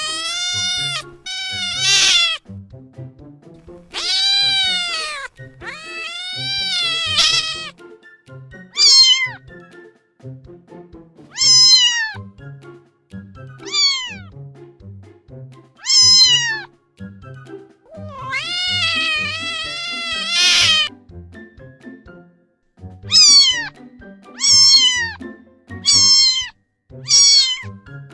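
Domestic cat meowing over and over, about thirteen calls. The first few are long and drawn out, one lasting over two seconds near the end; the later ones are short and fall in pitch. Soft background music runs underneath.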